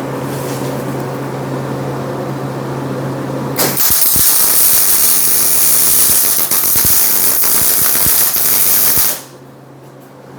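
A steady hum, then about three and a half seconds in a welding arc strikes and runs for about five seconds as a loud, even crackling hiss before cutting off suddenly: a tack weld being laid on steel.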